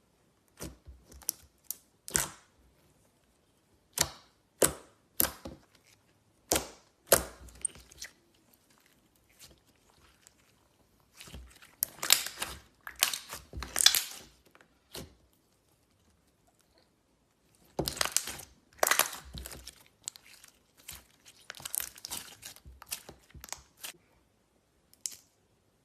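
Slime being squished and kneaded by hand, crackling and popping in short bursts with pauses between them.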